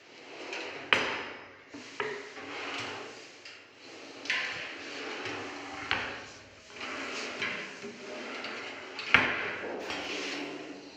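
Modular kitchen drawers and a pull-out stainless-steel wire basket being slid open and shut: sliding runs broken by several sharp knocks as they close, the loudest about a second in and near the end.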